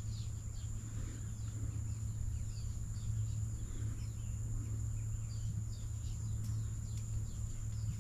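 Many birds chirping in short, falling calls over a steady high-pitched insect drone, with a low steady rumble underneath.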